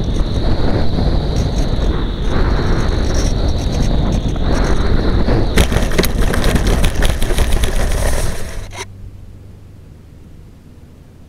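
Air rushing over the onboard camera of a Phoenix 2000 RC glider coming in low over grass, with a steady high whine. About five and a half seconds in it touches down and slides scraping through dry grass, stopping suddenly near nine seconds in; only a much quieter steady hum remains.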